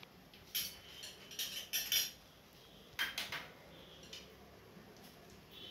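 Small stainless-steel bowls clinking and clattering against a steel plate as they are picked up and handled: a run of clinks in the first two seconds, another cluster about three seconds in, and a faint one just after four seconds.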